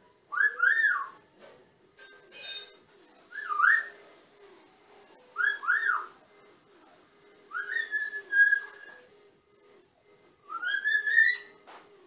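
Whistling: about six short whistled phrases a couple of seconds apart, each gliding up and down in pitch, the last one a rising glide. A short, rougher call comes about two and a half seconds in.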